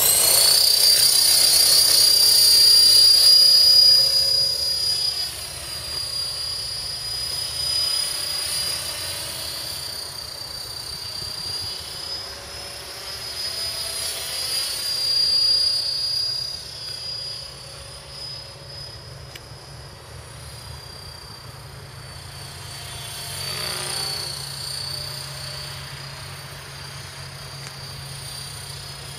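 KDS 450 electric RC helicopter at flying speed: a steady high whine from its motor and rotor, loudest for the first few seconds as it lifts off, then fainter, swelling and fading as it flies around at a distance.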